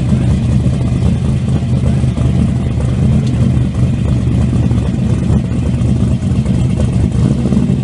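Twin-turbo 632 cubic-inch big-block V8 of a 1968 Chevrolet Camaro, breathing through four mufflers, idling loud and steady as the car creeps forward.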